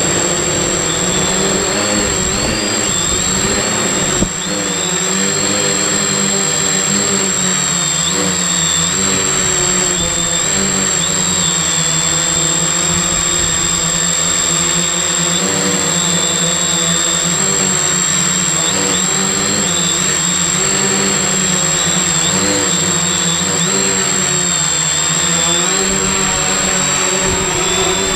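Multirotor drone's brushless motors and propellers whining, heard from a camera on the frame. The pitch wavers up and down as the throttle changes, over a constant high-pitched tone, with a brief drop about four seconds in.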